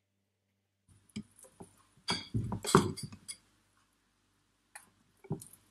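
Metal kitchen utensils clinking and tapping against a glass mixing bowl: scattered clinks, densest about two to three seconds in, then a few more near the end.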